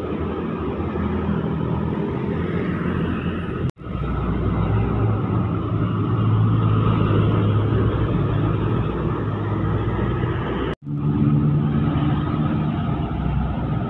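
Diesel trucks passing close by on a road, their engines running with a low hum that is loudest in the middle as a dump truck goes past. The sound breaks off for an instant twice, at cuts between clips.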